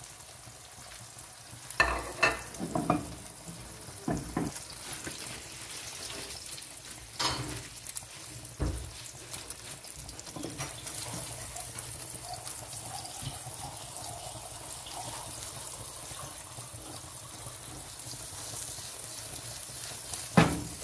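Omelette of beaten eggs sizzling steadily in hot oil in a non-stick frying pan. A few sharp knocks come through, the loudest about two seconds in and another near the end.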